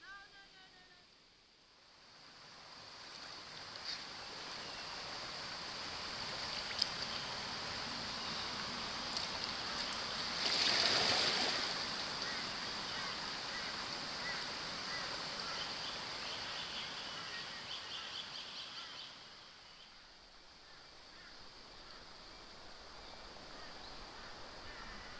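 Water sloshing and splashing close to the microphone as a swimmer wades in and swims, building up and loudest around the middle, then easing off. Behind it is a steady high-pitched drone of insects.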